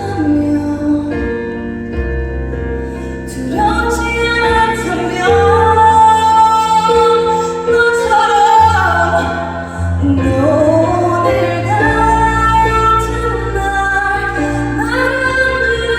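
Music with a woman singing over a steady bass and sustained chords.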